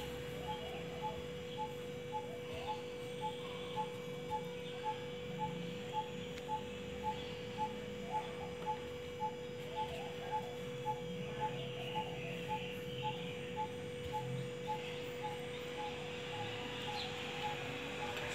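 A steady electrical hum with a soft, even ticking about twice a second that stops near the end, under faint bird chirps.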